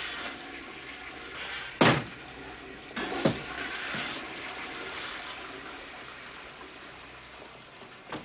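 Toilet flushing: rushing water that slowly fades, with two sharp knocks about two and three seconds in.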